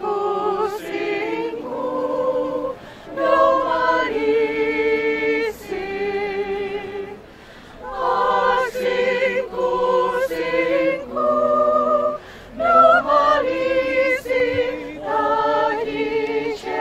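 A choir singing in harmony, holding long notes in phrases with short pauses between them.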